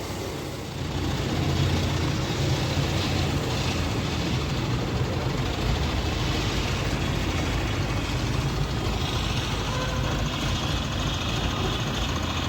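Hydra pick-and-carry crane's diesel engine running steadily, getting louder about a second in as it works the lift.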